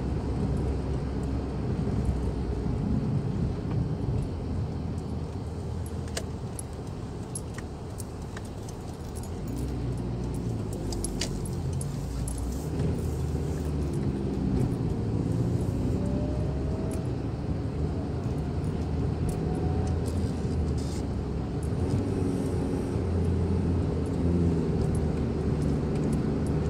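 Car driving, heard from inside the cabin: a steady low rumble of engine and road noise, with a few light clicks and rattles between about six and twelve seconds in.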